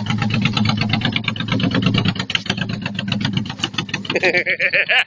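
Small vehicle engine running with a rapid, even firing rhythm as the vehicle pulls away.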